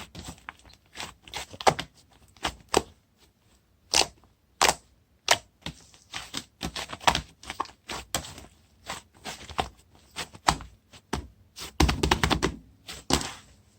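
Fluffy shaving-foam slime being squished and poked by hand, giving irregular wet clicks and pops, several a second, with a denser run of crackling about twelve seconds in.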